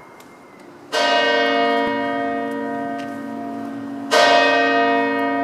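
A church tower bell struck twice, about three seconds apart, each stroke ringing on and slowly fading.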